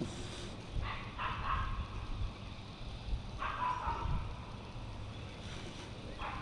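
Short animal calls in two bursts, about a second in and again about three and a half seconds in, over a steady low rumble.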